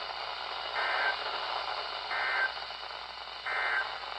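Weather radio sending the three short digital end-of-message bursts that close a severe thunderstorm warning: three brief buzzy data squawks about a second and a half apart. A steady radio hiss runs underneath.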